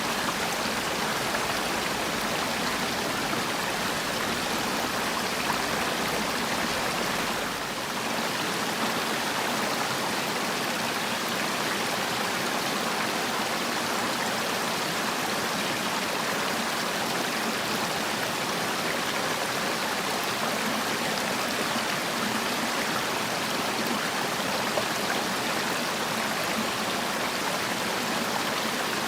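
Valley stream water rushing steadily, an even hiss of flowing water with a slight brief dip in level about seven seconds in.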